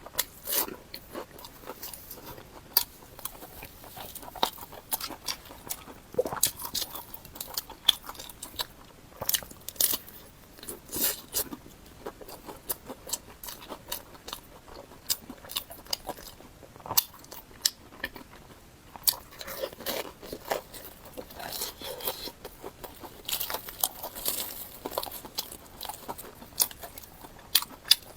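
Close-miked eating: crunchy bites and chewing, with many sharp, irregular crackles throughout.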